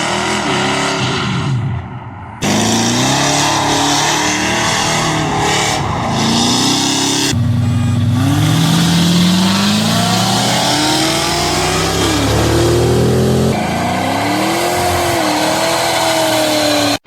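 Cammed, carbureted rebuilt engine of an OBS Chevy C1500 pickup accelerating hard, its pitch climbing and dropping again and again as it runs up through the gears. It comes in several short clips with abrupt cuts between them.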